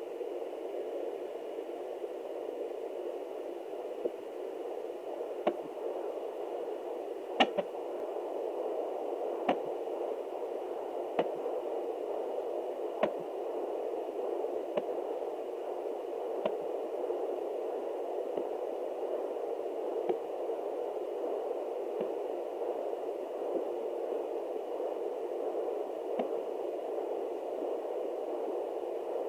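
Fetal hiccups at 29 weeks, heard through a home fetal doppler: sharp clicks, one about every one and a half to two seconds, over a steady hiss.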